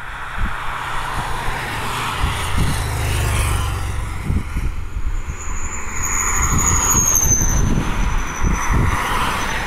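A motorcycle and then a car driving past on a road, their engines and tyres rising and fading, with wind buffeting the microphone. A thin high whistle falls in pitch about six seconds in.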